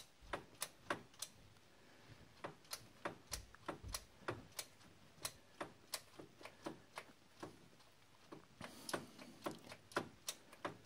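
Ratchet wrench clicking as a bolt on a Jeep ignition coil's mounting bracket is worked in short strokes, one click at a time, in a cramped space. The clicks come about three a second, unevenly, with a brief pause about halfway through.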